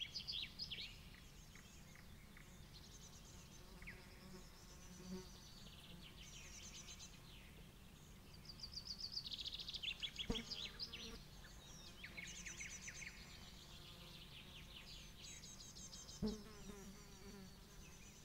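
Faint outdoor ambience: a small bird singing a continuous, varied stream of rapid high trills and chirps over a low steady rumble, with two soft knocks about ten and sixteen seconds in.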